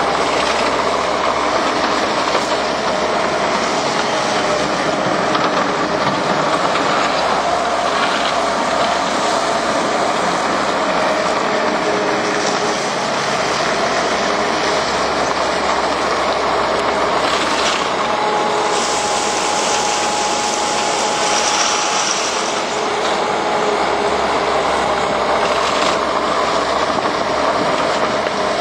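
Takeuchi TL150 skid steer's diesel engine running hard with the hydraulics working, a continuous heavy machine noise with a faint steady whine. The top end brightens into a louder hiss for a few seconds past the middle.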